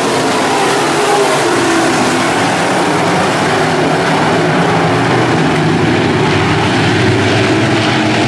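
A field of IMCA modified dirt-track race cars' V8 engines running at racing speed. Several engines blend into one loud, steady din, their notes rising and falling as the cars lap.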